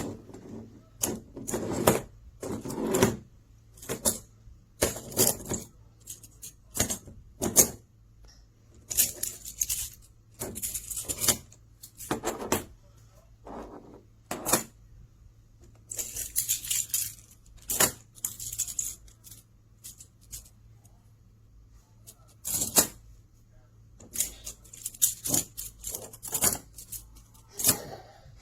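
Small hollow plastic magnetic building cubes clicking together and rattling as they are handled, in irregular clicks and short clatters.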